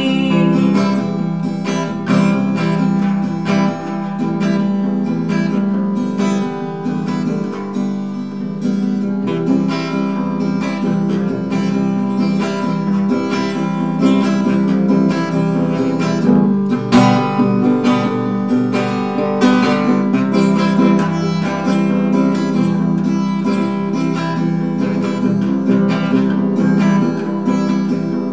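Solo acoustic guitar, a small-bodied parlor-style instrument, played with the fingers in an instrumental interlude of a kroncong-style folk song: picked and strummed chords in a steady rhythm.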